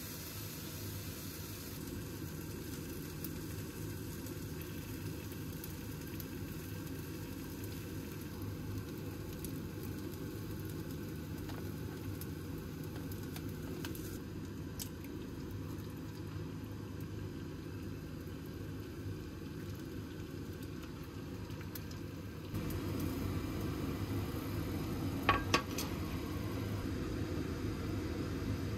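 Kimchi fried rice sizzling in a small rectangular frying pan as a metal spoon stirs it, with a few light taps of the spoon on the pan. Near the end come two sharp clinks close together.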